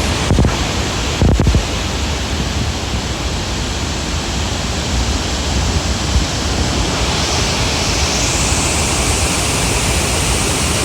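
Waterfall of the Lower Lewis River falling steadily, a loud, even rushing noise. There are two brief low bumps of wind on the microphone about a second in.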